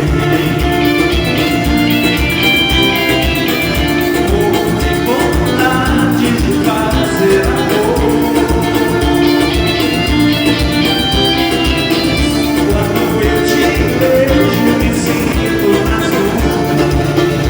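A live band playing upbeat music, with sustained instrument notes over a steady, regular bass beat.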